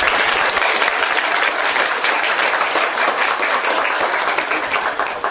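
An audience applauding: many people clapping in a dense, steady mass of claps.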